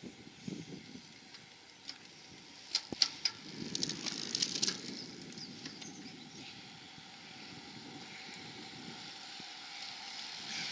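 Racing bicycles approaching and passing close: a scatter of sharp clicks about three to five seconds in, then a hiss of tyres and freewheels that rises near the end as the riders go by.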